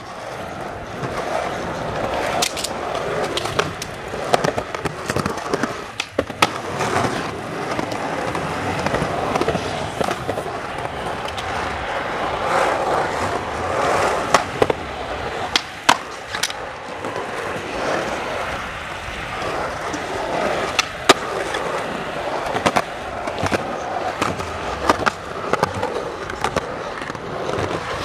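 Skateboard wheels rolling over concrete, with sharp clacks of the tail popping and the board landing again and again as the skater ollies in a row.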